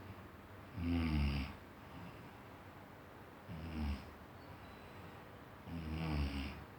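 Deep snoring: three long snores about two and a half seconds apart, with quieter breathing in between.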